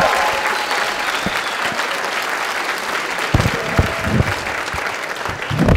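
Audience applauding steadily, gradually fading toward the end.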